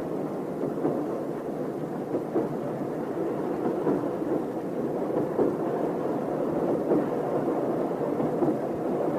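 A railway train running: a steady, dense noise of the moving train, with faint irregular knocks mixed in.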